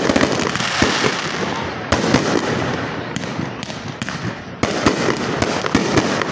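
Fireworks display: aerial shells bursting in quick succession, a string of sharp bangs over continuous crackling.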